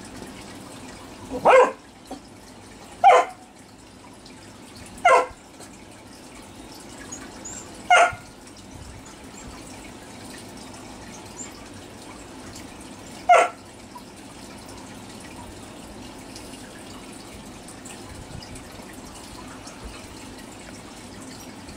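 Dog barking five times, single short barks spaced a few seconds apart with a longer gap before the last, over a steady background trickle of water.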